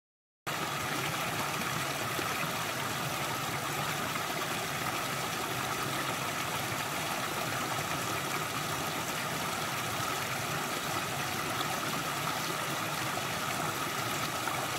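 Small rocky creek pouring over a low step between stones, a steady rush of running water that starts about half a second in.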